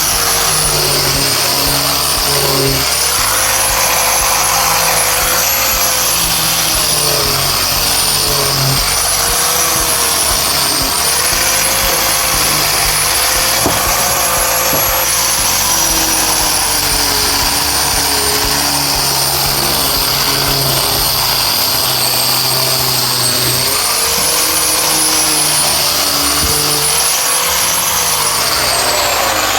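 A power tool's motor running with a whine, its pitch sagging and recovering every couple of seconds as it is loaded into the work. It winds down near the end.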